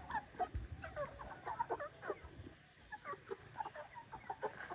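A flock of domestic chickens clucking, with many short, overlapping calls.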